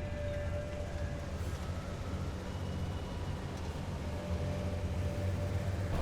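A vehicle engine running with a steady low rumble, with a few faint sustained tones of film score above it.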